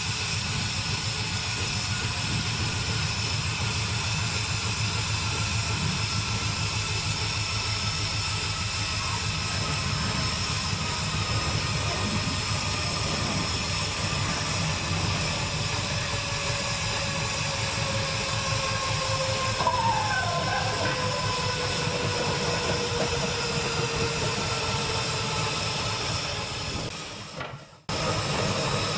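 A train running: a steady, fast low engine throb with faint whining tones that slowly fall in pitch. There is a cut about 28 seconds in.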